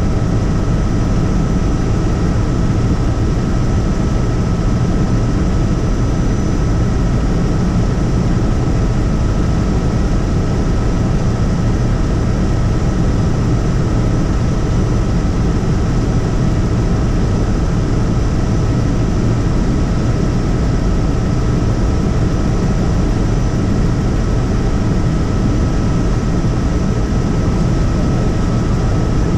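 Helicopter in flight: loud, unchanging rotor and engine noise with a steady high whine running through it.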